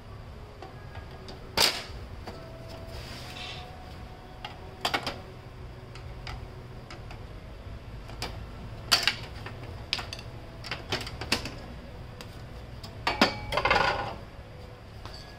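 Hard plastic clicks, knocks and a short rattle of a laser printer's casing and parts being handled and pulled apart by hand. The strokes come at irregular intervals, the loudest about one and a half seconds in, about nine seconds in, and a cluster just after thirteen seconds.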